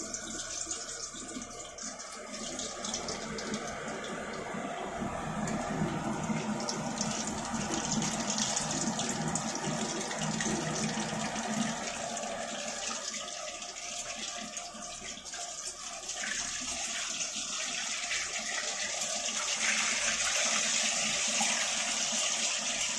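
Hot oil sizzling steadily as a potato-stuffed maida patty deep-fries in a steel kadai.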